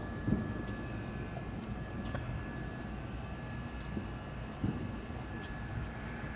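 Distant fireworks: a low rolling rumble of far-off booms and echoes, with a couple of muffled thumps, then a sharp loud bang right at the end.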